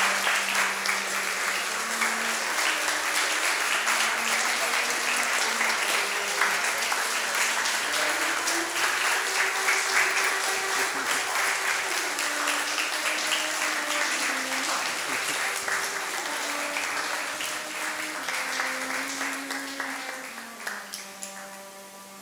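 Audience applauding steadily, then dying away over the last few seconds, over a solo cello playing held notes that change every second or two.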